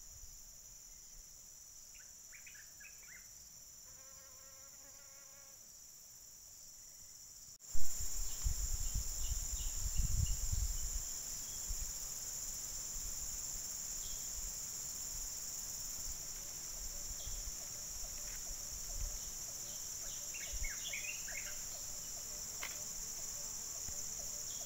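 A steady high-pitched insect chorus with a few short chirps scattered through it. About eight seconds in it turns abruptly louder, and a low rumbling joins it for a few seconds.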